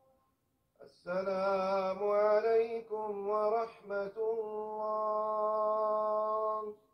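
A man's voice chanting in long, held melodic phrases after the congregational prayer. It begins about a second in and breaks off briefly twice before a final long phrase.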